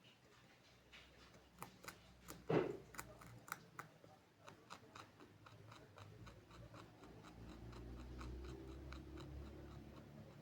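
An animal chewing pumpkin rind: a quiet run of small crunching clicks, a few per second, with one louder crunch about two and a half seconds in.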